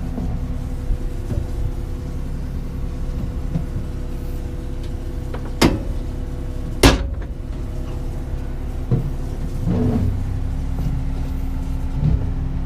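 Two sharp metal clacks about a second apart, about halfway through, as an engine compartment cover on the excavator is shut and latched. A steady engine hum runs underneath.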